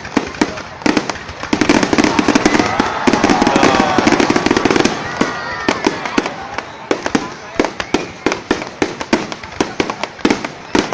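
A fireworks display with shells bursting in rapid, irregular succession: many sharp bangs and cracks, densest and loudest in the first half.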